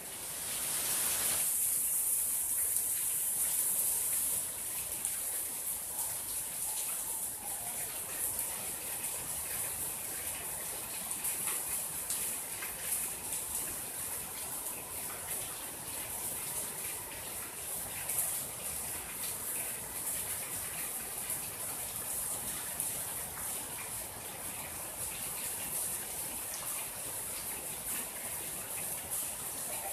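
Steady rain falling on a garden, an even high hiss with scattered drop ticks. It is louder for the first few seconds, then settles to a constant level.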